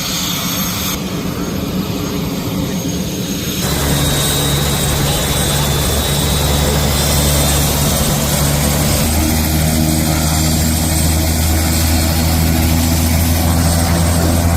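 Helicopter running close by on a lift job, a loud steady drone; about four seconds in its low hum becomes steadier and stronger.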